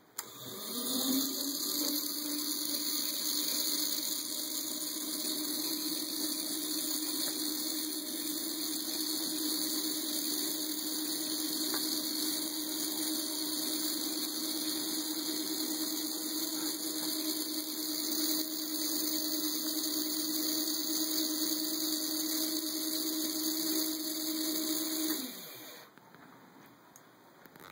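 Small electric conveyor-belt drive motor starting with a brief rising whine, then running steadily with a hum and hiss as the belt carries the jars. It cuts off suddenly shortly before the end, when a jar trips the micro switch that stops the conveyor for filling.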